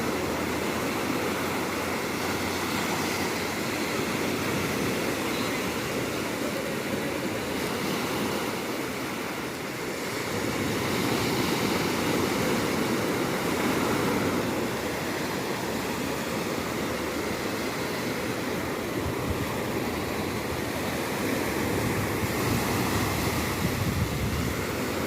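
Ocean waves breaking and washing in as a continuous rush of surf, dipping slightly about ten seconds in and then building again.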